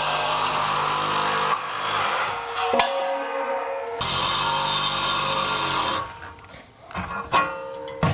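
Cordless reciprocating saw cutting through a steel square-tube RV bumper in two spells, stopping briefly about 3 s in and again about 6 s in. A few metal clanks follow near the end as the cut section is handled, over background music.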